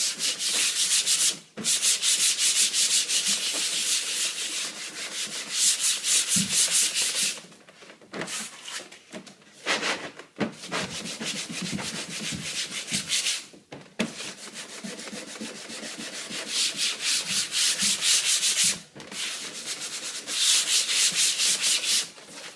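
Sandpaper rubbed by hand in rapid back-and-forth strokes over the smooth underside of a flexible shower-floor inlay, scuffing it so the adhesive will bite. The strokes come in quick runs with short pauses, and they go quieter and more broken for a few seconds in the middle.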